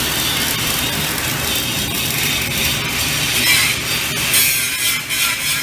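Automatic pipe-welding arc crackling and hissing steadily as the welding head runs around a pipe joint, with a low machinery hum underneath.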